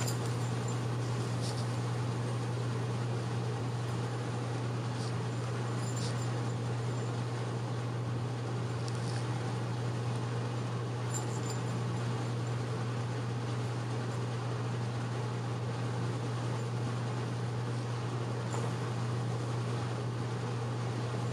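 Steady low hum with an even hiss over it, unchanging throughout, and a few faint soft ticks here and there.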